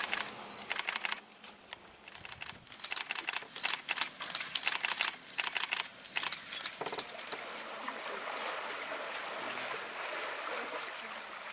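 Cape buffalo drinking and moving at the water's edge: irregular runs of wet clicks and splashes for the first six or seven seconds, then a steady watery hiss.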